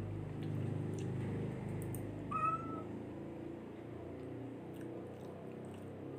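A single short animal call with a slight upward slide, about two and a half seconds in, over a steady low hum.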